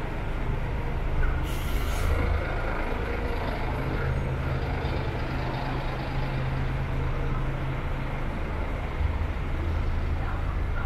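City street traffic: a vehicle engine running low and steady over road noise, with a short hiss about one and a half seconds in.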